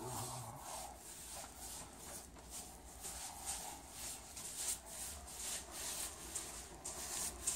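Paintbrush bristles swishing back and forth on a wall, brushing on paint at the base in short strokes about two a second.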